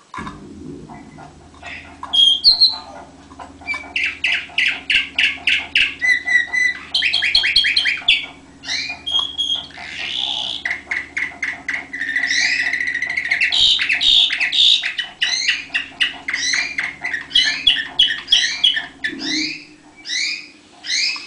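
Orpheus song canary singing a long, varied song: rapid trills and runs of repeated notes that change speed and pitch every second or two. A low steady hum lies underneath.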